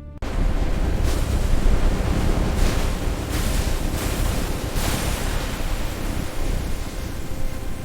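Loud rushing, rumbling noise that starts suddenly, with several hissing surges in the first five seconds; faint background music continues underneath.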